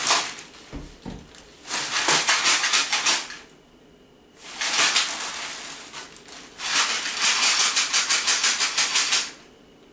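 Thin plastic shopping bag rustling and crinkling in three bursts as it is handled, the last and longest a quick rhythmic shaking of the bag, about eight shakes a second.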